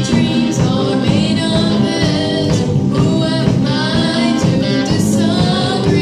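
A song: a voice singing a melody over instrumental accompaniment.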